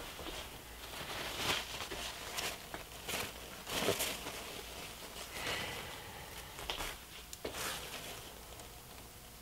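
Paper rustling and crinkling as it is handled, in a run of short, irregular rustles, the loudest about one and a half and four seconds in.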